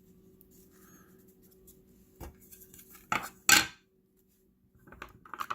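Trading cards and their packaging being handled: a few light clicks, then a louder short clatter about three and a half seconds in.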